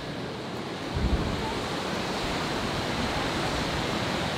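Steady rush of a river pouring down wide, stepped stone cascades, with a low thump about a second in where the rush comes in louder.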